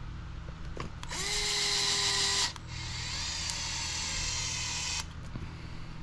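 Cordless electric screwdriver driving screws into a plastic RC buggy suspension arm: a whine that starts about a second in, rises in pitch and holds, breaks off briefly, then a second, quieter run whose pitch sinks slowly before it stops about five seconds in.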